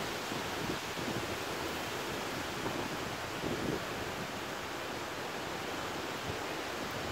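Steady rain falling, an even hiss, with gusts of wind buffeting the microphone.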